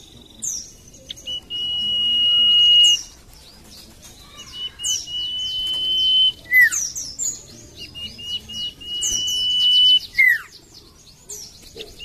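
Iora (cipoh) song: long drawn-out high whistles, each swelling for a second or more, broken by quick falling notes and bursts of short high chirps.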